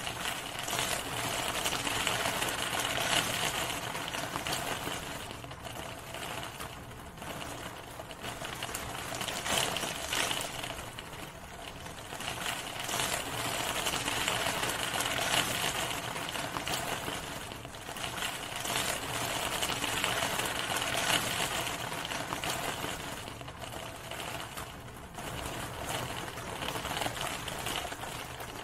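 Steady rain falling, a dense fast ticking of drops that swells and eases several times.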